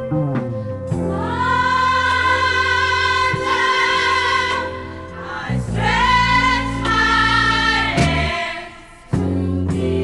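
Music with singing: two long, held sung phrases over a low bass backing. The music drops away briefly about nine seconds in, then the backing comes back.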